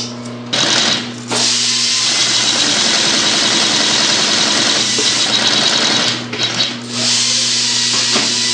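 Dürkopp Adler 204-370 heavy-duty sewing machine stitching webbing, running fast and steadily. It starts about half a second in, breaks off briefly near six seconds, then picks up again.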